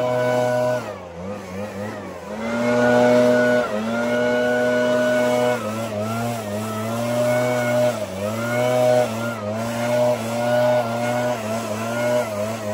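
Gas-powered backpack leaf blower running. The throttle is eased off about a second in and opened up again, and from about halfway on the engine pitch dips and rises every second or two as the throttle is worked.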